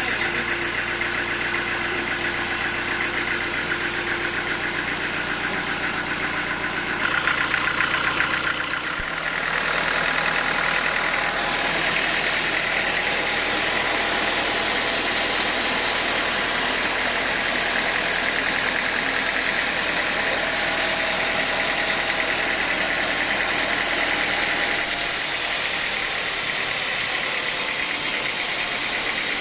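Engine of a homemade sawmill running steadily, its sound shifting in pitch and loudness about 8 seconds in and again near the end.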